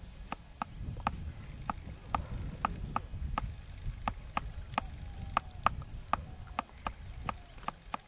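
Short sharp clicks repeating about three times a second at an even pace, over a low rumble.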